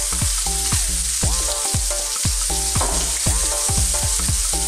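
Sliced onions and mushrooms sizzling steadily in a hot pan with a splash of olive oil. Background music with a steady repeating beat plays under the sizzle.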